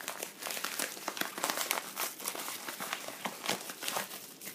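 Yellow padded bubble mailer being torn and opened by hand: a dense run of paper crinkling and rustling.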